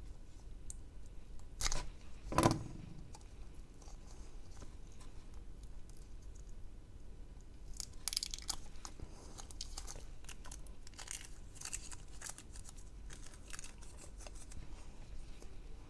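Kapton tape being cut and peeled off a battery pack: two sharp clicks about two seconds in, then a stretch of light crinkling and tearing with small clicks.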